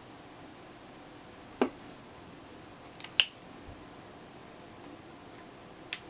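Three separate sharp clicks from handling the hard parts of a partly assembled OTF knife and a screwdriver, the middle click the loudest, against a quiet room.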